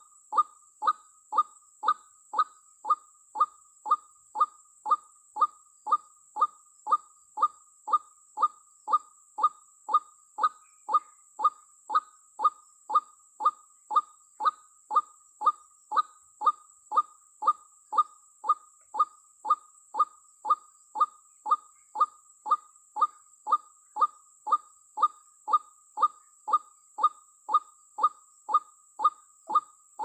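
White-breasted waterhen's 'ruak' call, used as a trapping lure, repeating monotonously at an even beat of about one and a half calls a second.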